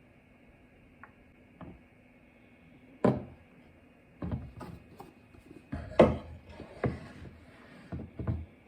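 Wooden drawer on slide rails being pushed and pulled, with a series of sharp wooden knocks and clunks from about three seconds in, the loudest about six seconds in. Two faint clicks come before it.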